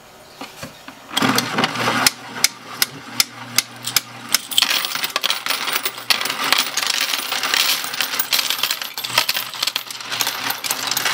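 Royal Sovereign FS-500 electric coin sorter running with a low motor hum and sharp clicks about twice a second, then a cupful of coins poured into its hopper, clinking and jingling continuously as they are sorted into the tubes from about four seconds in.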